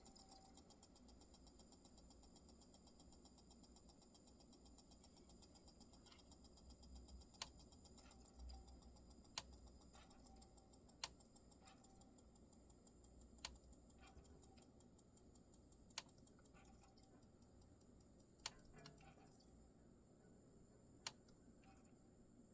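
Marantz CD6006 CD player's disc mechanism spinning, with a faint steady low hum and, from about a third of the way in, a sharp click every two to three seconds. This is the strange spinning noise that its owner suspects is a fault needing repair.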